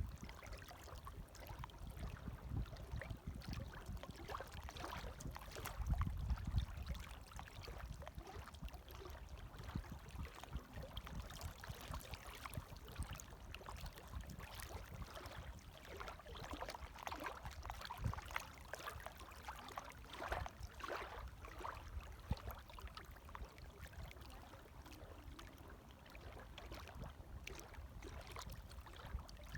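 Gentle small waves lapping and splashing, faint and irregular, with a low surge of water about six seconds in and a run of brighter splashes in the second half.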